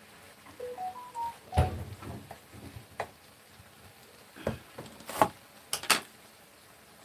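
Quiet clatter of kitchen utensils at a table: a soft thump about a second and a half in, then scattered sharp clicks and taps, the last few close together near the end. A faint brief run of rising tones sounds just under a second in.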